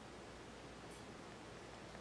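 Faint, steady hiss of outdoor background with no distinct sound event.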